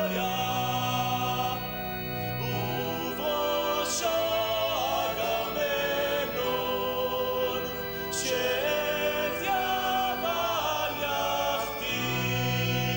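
Music with a choir of voices singing over held low notes.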